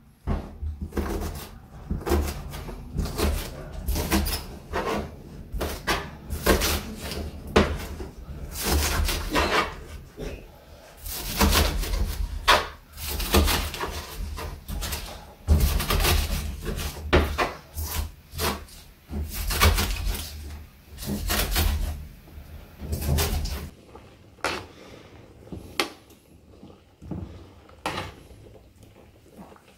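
Kitchen knife chopping green onions on a cutting board: a long run of quick, irregular knocks, each with a dull thump from the board. The chopping stops about six seconds before the end, leaving only a few fainter clicks.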